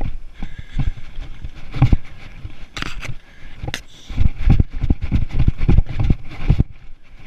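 Irregular knocks and scrapes of footsteps scrambling over rock, with thumps of the camera being jostled. A couple of sharp clicks come a few seconds in, and a dense run of knocks follows until shortly before the end.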